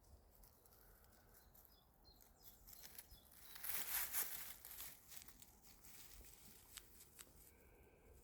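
Quiet forest background with a brief rustling, crinkling sound about four seconds in and a few faint scattered ticks.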